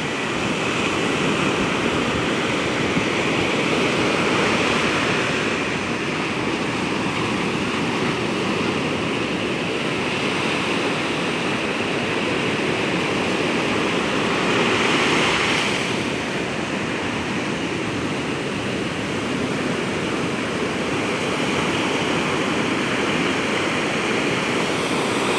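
Ocean surf washing onto a beach: a continuous rush of breaking waves that swells and eases, with one stronger wave about fifteen seconds in.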